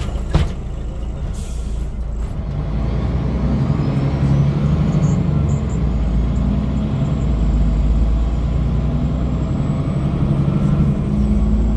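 MAN D2866 diesel engine and ZF 5HP-592 automatic gearbox of a MAN NG313 articulated bus, heard from inside the cabin. A thump and a short hiss come near the start, then the engine pulls harder and runs louder from about two and a half seconds in, with a faint whine climbing in pitch.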